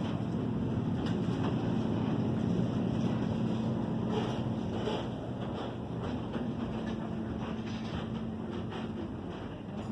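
A steady low hum with a faint haze of noise over it, and a few light clicks and rustles scattered through.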